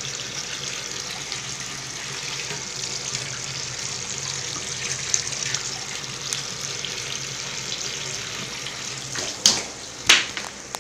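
Water running steadily into a tank, a constant splashing hiss. Near the end there are two sharp knocks about half a second apart.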